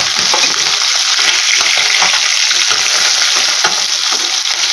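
Small whole fish frying in hot mustard oil in a kadhai: a steady sizzle and crackle, with a steel spatula scraping the pan as the fish are turned over.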